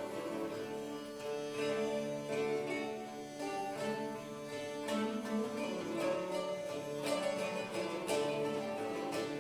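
Medieval music on period string instruments: lutes plucked over held notes from a bowed rebec.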